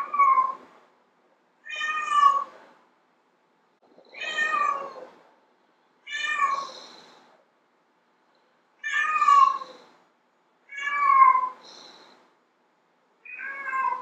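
Domestic cat meowing: seven drawn-out meows, one about every two seconds, each falling in pitch as it ends.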